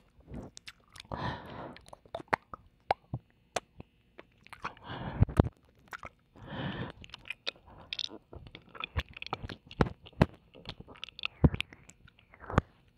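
Ear-licking mouth sounds close to the microphone: wet tongue and lip clicks, smacks and kisses. Three longer breathy hushes come at about 1, 5 and 6.5 seconds in.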